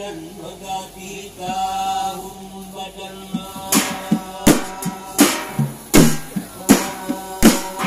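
A man chants a sung melody into a microphone. About halfway through, hand-held frame drums come in with a steady beat, a sharp stroke roughly every three-quarters of a second.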